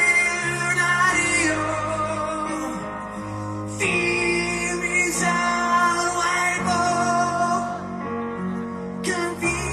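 Live rock band playing a slow, soft ballad arrangement through a festival PA, heard from the crowd. A male lead singer holds long notes in phrases of a few seconds over steady low instrumental backing.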